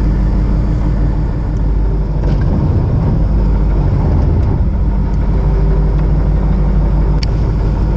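Fishing boat's engine idling with a steady low hum, over wind and water noise; two faint ticks about two and seven seconds in.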